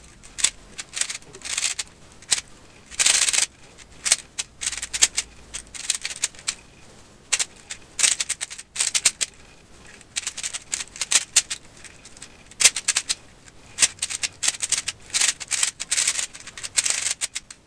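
Rubik's Cube being turned fast during a speed solve: irregular runs of plastic clicking and clacking as the layers are twisted, broken by short pauses between sequences of moves.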